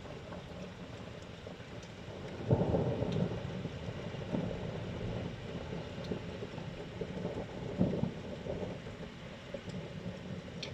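Steady rain falling, with a roll of thunder starting about two and a half seconds in and rumbling on for several seconds, swelling again near eight seconds.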